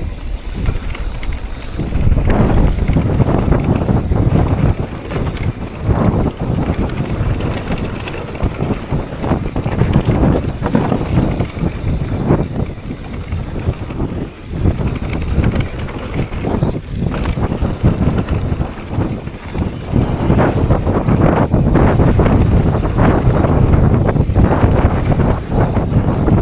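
Mountain bike descending a rough dirt trail at speed: wind buffets the microphone over a steady rumble from the tyres, with frequent short rattles and knocks from bumps. It grows louder in the last few seconds.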